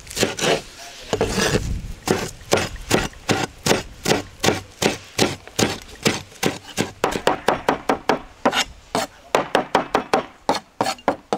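A large chef's knife chopping a pile of fresh herbs on a wooden cutting board, in a steady run of quick knocks of the blade on the wood. The strokes come about three a second at first and quicken to about five a second in the second half.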